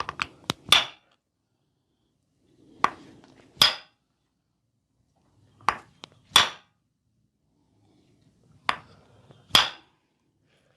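Four rounds of sharp cracks and snaps about three seconds apart, each a few small clicks ending in one loud crack, from hands working the body in a chiropractic-style massage.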